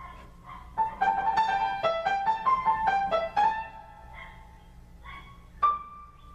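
Piano played improvised: a quick run of high notes for about two and a half seconds, then a few single notes struck and left to ring, one struck harder near the end.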